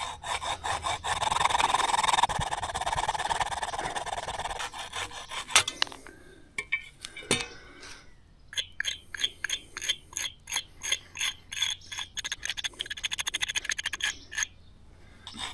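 Hacksaw cutting through a lead battery terminal post in back-and-forth strokes. After a short pause about six seconds in, a tool scrapes the cut lead in quick, even short strokes. The post is being cut off because the recast lead did not fuse deep enough into the base.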